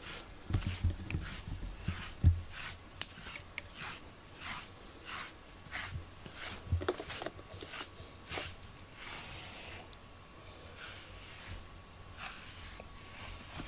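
FURminator deshedding brush drawn through a cat's coat in brisk rasping strokes, about two a second, combing out loose undercoat. A few soft bumps from handling come in between.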